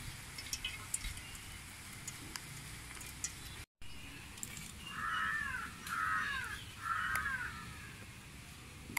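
A crow cawing three times, about a second apart, in the second half.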